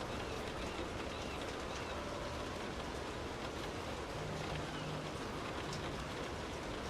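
Steady rain falling, an even hiss, with a few faint bird calls over it.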